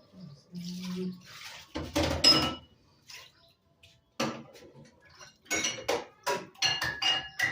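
Kitchen dishes and utensils clinking and knocking in a run of short, ringing strikes, busiest over the last few seconds.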